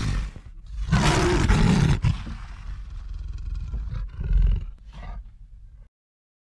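Roar sound effect: a loud, rough roar that swells about a second in, trails off, rises again around four seconds, and cuts off suddenly near six seconds.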